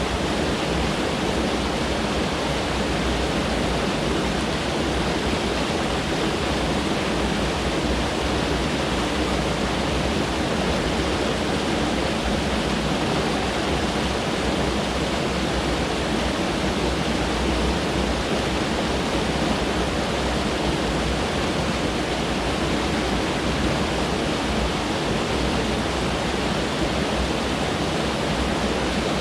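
Mountain stream rushing steadily over rocks, an even, constant roar of water.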